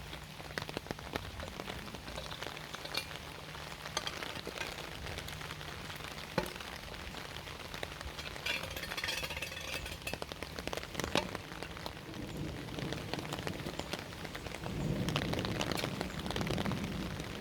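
Dense patter and crackle of water, like rain or spray on a surface, with a low steady hum through the first half and a louder rush of water about fifteen seconds in.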